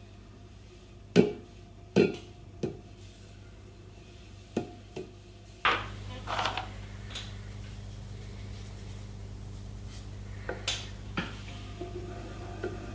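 Electric potter's wheel humming. The hum jumps up to a louder, steady level a little before halfway and stays there. Several sharp knocks and taps of hands and tools against the wheel and clay come in the first half, with two more near the end.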